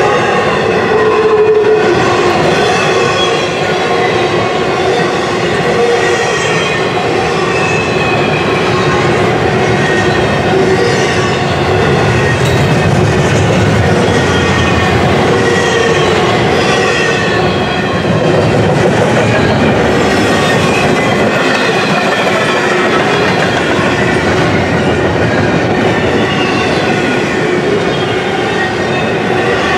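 Double-stack intermodal container cars rolling past close by: a steady, loud noise of steel wheels on rail, with high wavering squealing tones from the wheels running over it.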